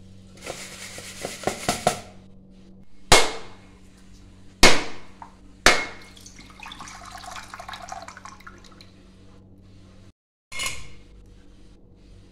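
Rice grains rustling as they are stirred in a hot pan. Then a whole coconut is struck sharply three times to crack it open, and its water splashes as it pours into a bowl.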